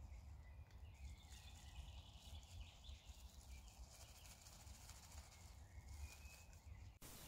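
Near silence: faint, distant birdsong over a low rumble of woodland background.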